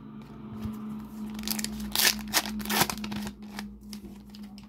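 Trading cards being handled and a foil card packet crinkled and torn open. The loudest rustling and crackling comes in a cluster about two to three seconds in.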